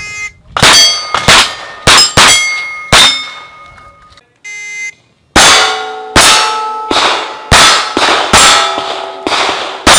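Shot timer beep, then a quick string of five pistol shots, each followed by the ring of a hit steel plate. About four and a half seconds in a second timer beep starts another rapid string of shots and ringing steel plates.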